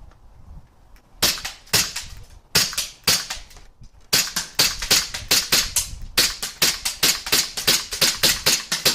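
WE G19 gas blowback airsoft pistol firing semi-auto, each shot a sharp crack with the slide cycling: a few spaced shots, then a quick string of about three to four shots a second from about four seconds in, emptying the magazine.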